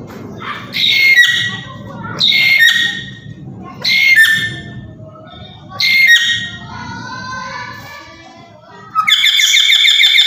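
Black-capped lory giving loud, harsh squawks: four short calls about every one and a half to two seconds, each dropping at the end, then a loud, rapid rattling trill starting near the end.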